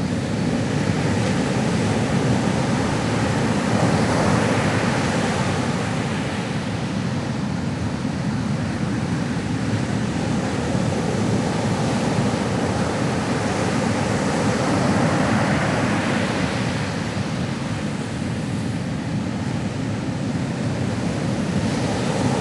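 Ocean surf: a steady rush of waves that slowly swells and eases, building to a crest about four seconds in and again about fifteen seconds in.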